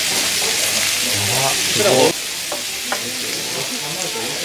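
Steak sizzling on a hot serving plate in a loud, steady hiss that eases about two seconds in. A brief pitched sound comes just before it eases, and a couple of light clicks follow.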